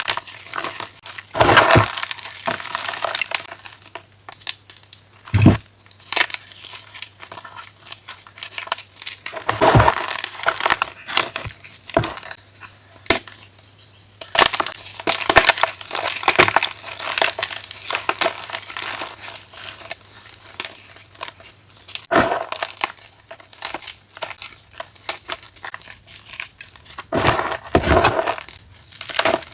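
Blocks of chalk being crushed and crumbled, with a dense irregular crackling broken by louder crunches every few seconds.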